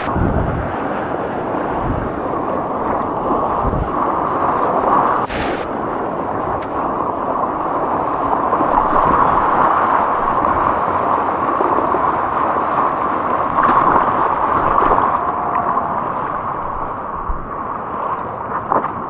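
Ocean surf rushing: a steady roar of breaking, churning water, with a few low thumps.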